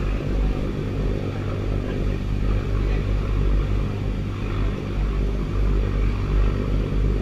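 Boat engine running steadily under way, a low even drone, with the wash of water and wind over it.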